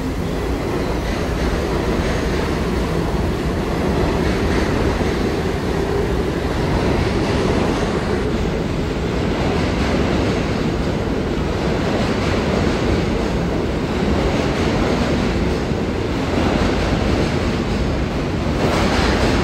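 New York City subway train running through the station: a steady, loud rumble and rattle of wheels on the rails, echoing in the tunnel, with a brief rise in hiss near the end.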